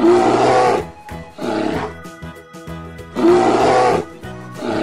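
Bear growling sound effect, four rough roars about a second apart, over light background music.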